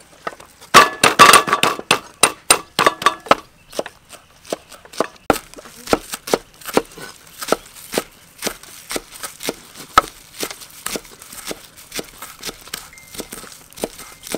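Cleavers chopping green onions on a wooden chopping block: a fast, loud flurry of knocks about a second in, then a steady run of single chops, about two or three a second.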